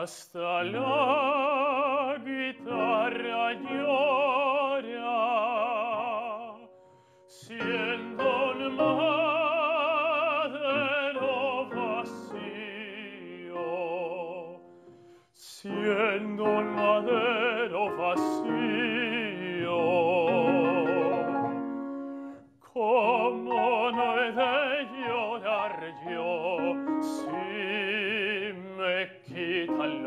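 Male lyric tenor singing a song in full operatic style with a wide vibrato, accompanied by piano. He sings in long held phrases, breaking off briefly for breath about three times.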